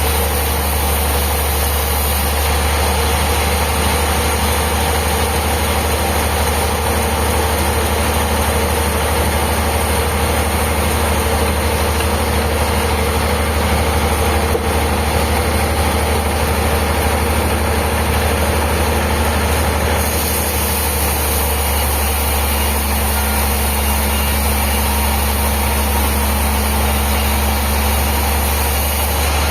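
Sawmill machinery running steadily with a deep, constant hum; the higher part of the noise shifts slightly about twenty seconds in.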